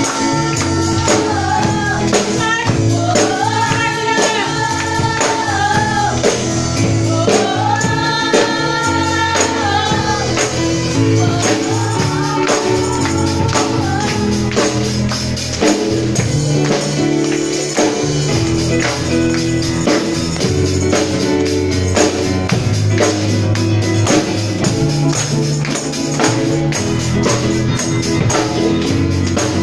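Gospel worship song: held sung notes over a steady backing, with tambourine jingles shaken in time throughout.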